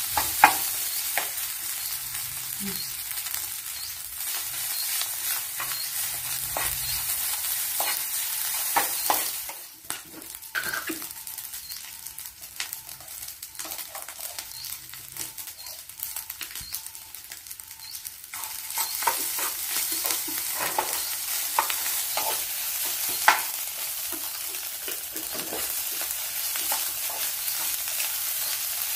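Rice frying and sizzling in a nonstick pan, stirred with a wooden spatula that scrapes and taps against the pan. The sizzle dies down for about nine seconds near the middle, then comes back.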